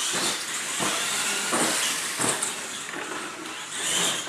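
Radio-controlled monster trucks running on a concrete floor: steady motor whine and tyre noise, with several knocks as a truck hits the ramp and tumbles.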